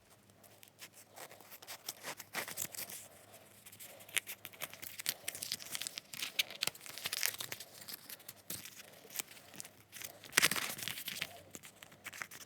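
Paper-backed nail decal sheet being handled and its backing cut away: irregular rustling, crinkling and small clicks, with the loudest rustle about ten seconds in.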